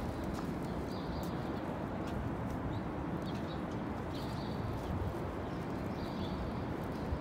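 Outdoor city ambience: a steady low hum of traffic and people, with short high chirps about five times and a few faint clicks.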